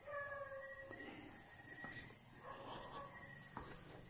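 Night insects, crickets among them, chirring steadily as a high, continuous background, with a couple of faint knocks.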